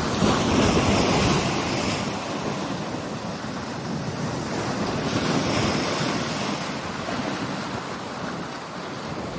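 Waves breaking and washing on a Chesapeake Bay beach in strong wind, with wind buffeting the microphone. The surf swells about a second in and again around five to six seconds.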